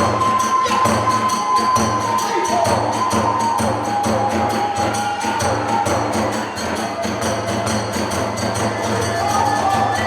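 Kagura music: a bamboo transverse flute plays a held, sliding melody over fast, dense drumming and small hand cymbals.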